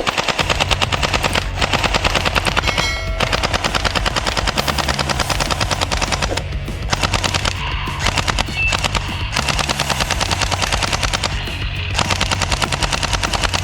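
Toy AK-47 submachine gun's electronic machine-gun sound, rapid-fire shots in bursts with short breaks between them.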